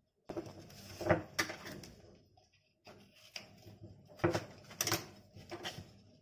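Paper and double-sided tape being handled and pressed onto a cardboard tube: irregular rustling and crinkling with several sharp crackles, and scissors snipping the paper a little past the middle.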